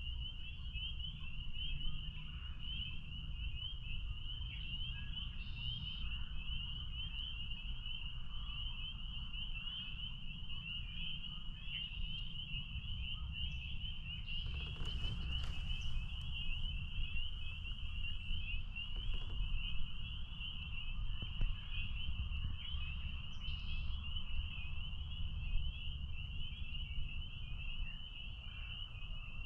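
Chorus of spring peepers: many high, rapid peeps blending into one continuous shrill band, over a steady low rumble, with a brief rush of noise about halfway through.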